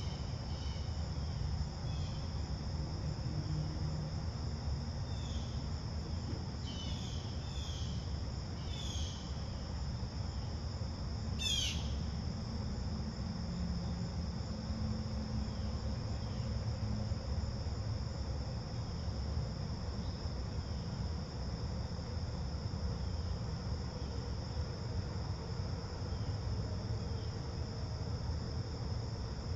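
Steady chorus of crickets, a constant high-pitched trill, with a few short bird chirps in the first ten seconds and one louder descending bird call about twelve seconds in. A steady low rumble lies beneath.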